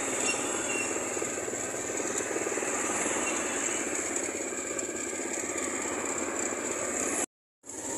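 Steady rattling road noise from riding in a pedal-powered cycle rickshaw (becak) on a town street. The sound cuts out completely for a moment near the end.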